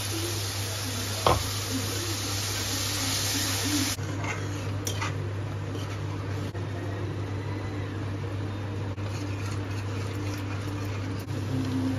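Curry gravy sizzling in a steel kadai as a paste is poured in and stirred with a steel spatula, with one sharp metal clink about a second in. The sizzle drops noticeably about four seconds in, leaving light scraping and ticks of the spatula over a steady low hum.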